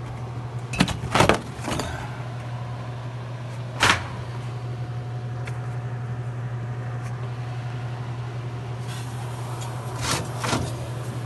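Knocks and clunks of parts being pulled loose from a vending machine's refrigeration unit: a quick cluster about a second in, one sharp knock near four seconds, and a couple more near the end, over a steady low hum.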